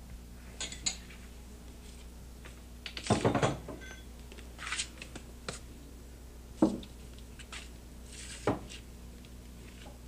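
Small hard objects, dishes and tableware, clinking and clattering as they are moved and set down on a table. The sounds come in separate bursts: a couple of clicks, a longer rattle about three seconds in, then single knocks. A low steady hum from the old recording runs underneath.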